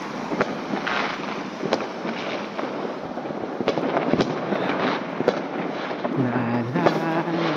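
Many New Year's fireworks and firecrackers going off on all sides: a constant crackling haze of distant pops, with sharper single bangs about every second.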